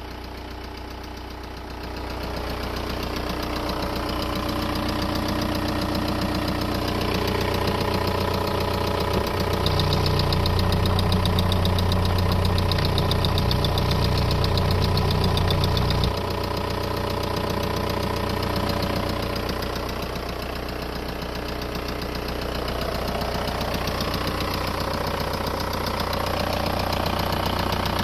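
Volkswagen Golf Mk4 1.9 TDI four-cylinder turbodiesel engine running steadily, with an unidentified noise the owner calls strange. About a third of the way in the sound grows louder and fuller for several seconds, then drops back abruptly to the steady running.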